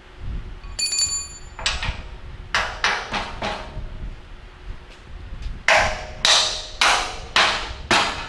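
A piece of metal clinks and rings briefly, then a run of hammer blows on metal; the last five are the loudest and evenly spaced, a little under two a second.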